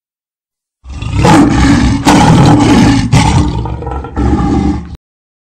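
Loud cinematic logo-intro sound effect: a dense rushing noise that starts about a second in, with several heavy hits about a second apart, and cuts off suddenly.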